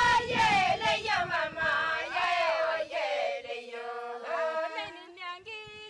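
A group of women singing a chant together.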